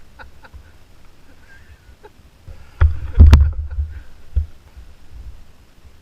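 Man hacking and retching hard, trying to clear a piece of sumac stick stuck in his throat. A few short hacks come first, then a loud burst of coughing about three seconds in and one more sharp hack a second later.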